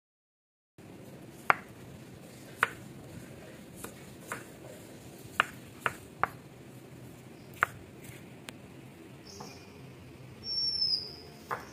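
Steel kitchen knife cutting a tomato on a wooden chopping board: sharp, irregular knocks of the blade against the board, about ten of them, starting about a second in. Near the end a short, high, slightly falling chirp, like a bird's.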